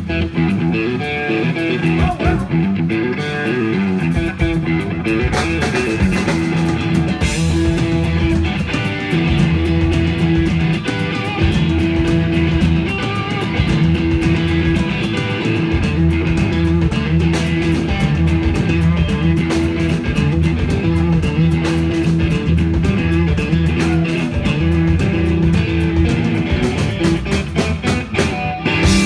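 Live rock band of electric guitar, bass guitar and drum kit playing an instrumental passage without vocals: a repeated low guitar-and-bass riff over a steady drum beat.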